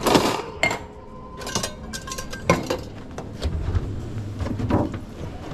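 Clinks and knocks of cups, dishes and utensils being handled, with a thin steady tone lasting about a second and a half near the start.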